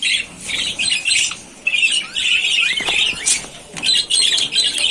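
A flock of budgerigars chattering and squawking, with busy high-pitched calls in repeated bursts.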